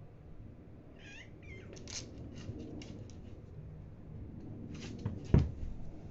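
Two cats play-fighting: a short high-pitched cat cry about a second in, then scuffling clicks and scrapes of paws and claws, with one loud thump about five seconds in.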